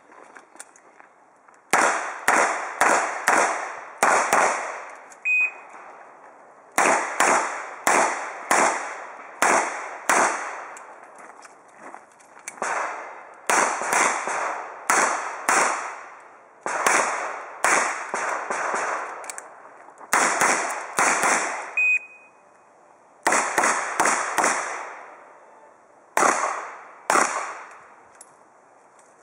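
Revolver gunfire: strings of rapid shots, several in a row, each shot trailing off in echo, with pauses of a second or more between strings.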